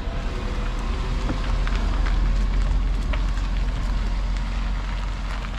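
Wind buffeting the microphone over the steady drone of a vehicle engine while travelling along a road.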